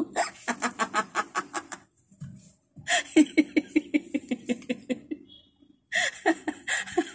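A woman laughing hard in quick repeated bursts, breaking off briefly twice, about two and five seconds in.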